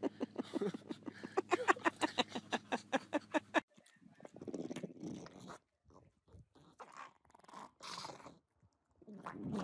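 A rapid run of short pitched cries, about six a second, for the first three and a half seconds. Then a pug crunches and chews a broccoli floret in short, uneven bursts.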